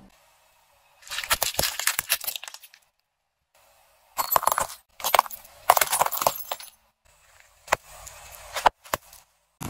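Small objects crushed under a car tyre: several bursts of cracking and crunching, each lasting about a second or less with short silent gaps between them, including breaking glass from cork-stoppered glass vials. A few single sharp cracks come near the end.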